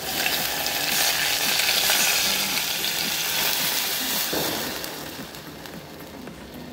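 Hot tempering of oil, garlic, green chillies and curry leaves in a steel pot sizzling and splashing as buttermilk is poured in. It is a loud hiss that fades over the last couple of seconds as the pot fills.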